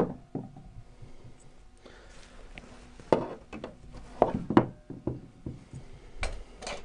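Scattered light knocks and clicks of wood and metal from a wooden box sash window being handled as the pins holding its sash cords are pulled out, about eight short taps in all, the loudest about three seconds in and again between four and five seconds in.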